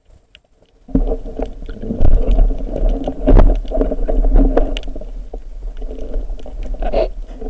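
Water churning and sloshing close to the microphone in a rough low rumble, starting suddenly about a second in, with scattered knocks and clicks.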